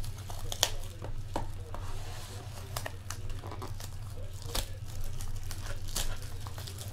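Clear cellophane shrink-wrap being torn and crumpled off a box of trading cards: irregular sharp crackles and rustles throughout, over a steady low hum.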